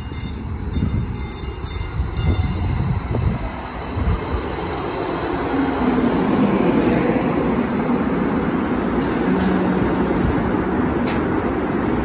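A MetroLink electric light-rail train rolls in and brakes to a stop at the platform. The rumble of wheels on rail grows louder from about four seconds in, with a low whine that falls in pitch as the train slows.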